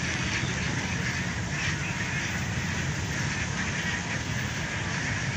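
Steady outdoor ambience: a continuous chorus of many small animal calls over a low, even rumble.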